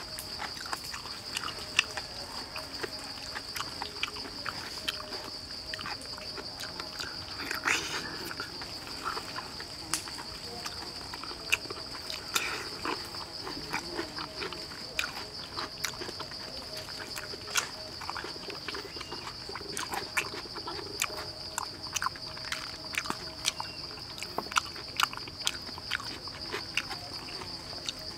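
Close-up eating sounds: chewing, lip-smacking and sharp crackles as crisp roast pig-head skin and meat are torn and bitten, over a steady high-pitched insect buzz.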